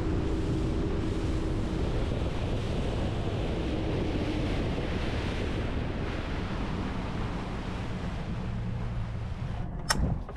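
A boat running at speed: wind buffeting the microphone over the rush of water along the hull, with a steady engine tone underneath for the first couple of seconds. A sharp click near the end.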